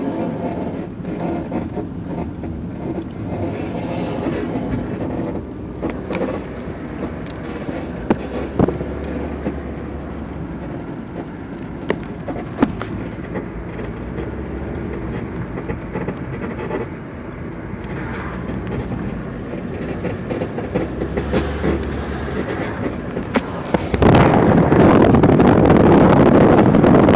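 2002 Honda Accord rumbling through a turn, with a few sharp knocks from its front end. A shop put the noise down to the struts, and someone else to the bushings. Near the end a much louder rushing noise suddenly sets in.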